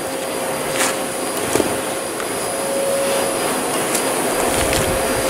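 Vacuum cleaner running steadily with a constant whine, with a few faint clicks over it.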